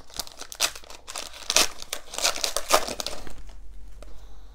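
Foil wrapper of an Upper Deck hockey card pack crinkling and tearing as it is ripped open by hand, a dense run of crackles that thins out near the end.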